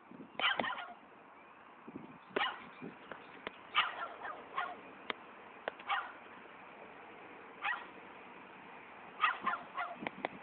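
Dog barking: single barks a second or two apart, then a quick run of several barks near the end.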